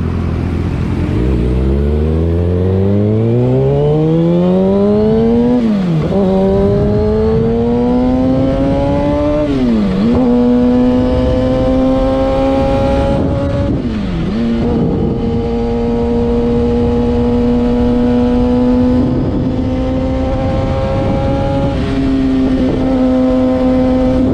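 Kawasaki ZX-6R 636 inline-four engine pulling away from low revs and accelerating, the revs climbing over about four seconds. It upshifts three times, with a quick dip in pitch at each change, then holds a steady cruise with a couple of small throttle dips near the end.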